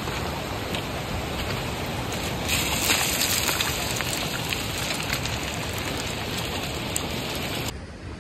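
Footsteps crunching and clattering over loose stones and scree, over a steady rushing hiss. The crunching grows busier about two and a half seconds in.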